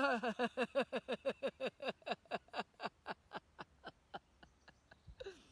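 A woman's deliberate, on-cue laughter in a laughter-yoga exercise: a long run of rapid 'ha-ha-ha' pulses, about six a second, each falling in pitch, fading steadily until it trails off near the end.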